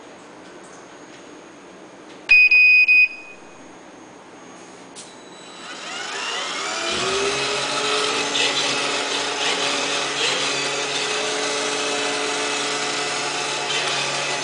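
HUMMINGBIRD-I robot floor cleaner gives a loud electronic beep about two seconds in. A few seconds later its motors spin up, rising in pitch, and settle into a steady whine as it runs.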